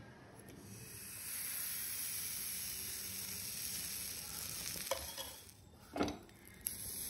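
Sponge dosa batter sizzling on a hot greased dosa tava as it is poured and spreads, starting about a second in. About six seconds in, a sharp knock as a lid is set down over the pan, with a lighter knock just after.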